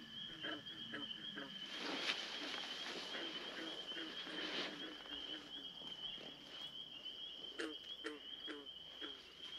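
Barred owl calling in runs of short, hooked hoots, a few per second, over a steady high-pitched insect trill. A rough rushing noise rises from about two to five seconds in.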